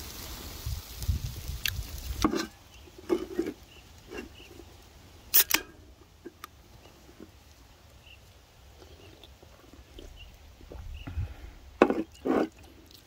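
Handling sounds on a wooden cutting board: scattered soft knocks as grilled ribs and a drink can are set down, with a sharp double click about five and a half seconds in and a few louder knocks near the end. Low wind rumble in the first two seconds.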